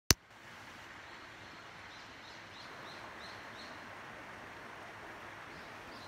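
Shallow mountain stream running over rocks, a steady rush of water, with a small bird giving a run of about six short high chirps between two and four seconds in. A sharp click at the very start.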